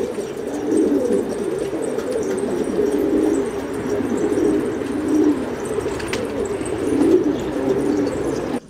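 A flock of domestic pigeons cooing together, many low, overlapping coos forming a continuous chorus. It breaks off abruptly just before the end.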